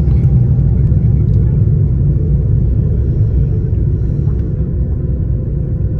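Steady low rumble inside the cabin of an Airbus A330 taxiing, the engines and rolling gear heard through the fuselage, easing slightly toward the end.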